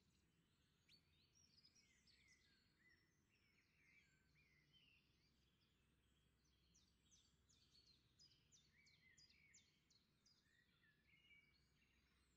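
Near silence, with faint bird chirping in the background, quickest about two-thirds of the way through.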